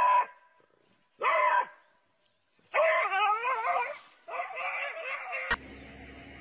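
A dog barking twice in short barks, then about three seconds in letting out long wavering yelps, as a dog does in distress.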